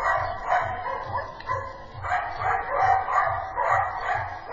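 A dog barking repeatedly, about three barks a second, without a break.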